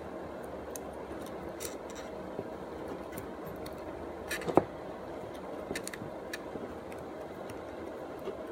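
Small clicks and taps of a plastic push-button start switch's parts being handled and fitted together by hand, with one sharper click about four and a half seconds in, over a steady background noise.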